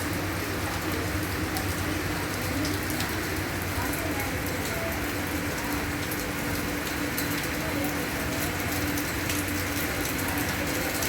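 Steady rain falling, with many separate drops ticking on hard surfaces over a constant wash, and a low steady hum underneath.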